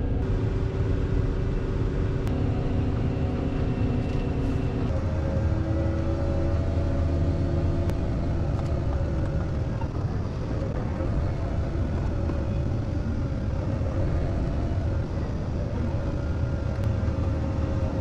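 Tractor engine running steadily, a continuous low drone whose pitch shifts slightly about five seconds in.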